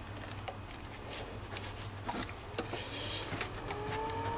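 Pliers working a hose clamp on a truck's heater hose: a few faint, scattered light clicks and scrapes of metal over a low steady hum. Near the end a faint whine rises and then holds steady.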